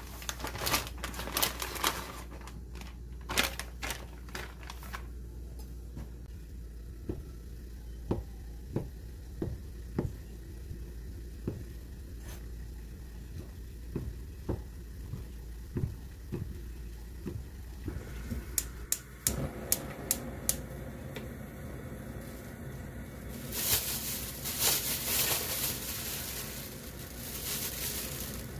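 Plastic packaging crinkling, then a kitchen knife slicing fish cake against a plastic cutting board: a string of separate sharp knocks. Near the end a louder steady hiss takes over.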